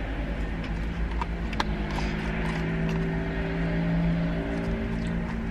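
Eating sounds inside a car: chewing and sharp clicks of a plastic fork against a plastic bowl, a few clicks between about one and three seconds in. Under them runs a steady low engine hum with a few held tones.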